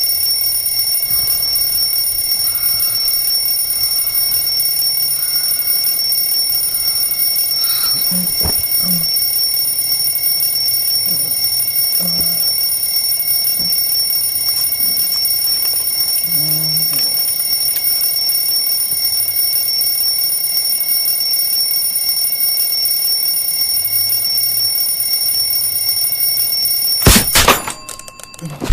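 Alarm clock ringing loudly and without a break, a steady shrill ring with faint knocks and rustles beneath it. Near the end a loud knock cuts the ringing off abruptly.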